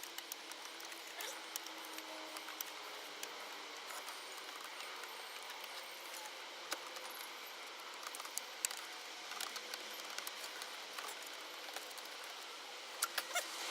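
Faint scattered clicks and light rattles of the stock Shaker 1000 head unit being worked loose and slid out of the dash, over a low steady hiss.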